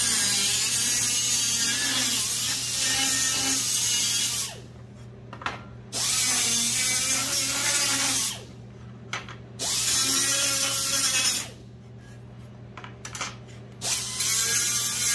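Small air grinder run in four bursts of a few seconds each, a loud hiss with a whine that wavers in pitch as it rounds over the sharp edges of a scrap-wood layout tool.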